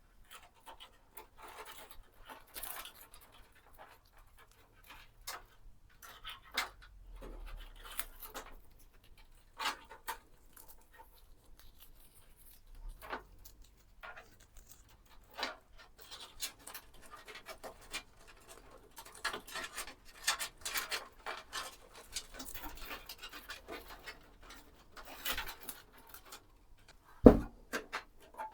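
Hands working on PC parts during a build: scattered small clicks, scrapes and rustling of components and cables, with one sharp knock near the end.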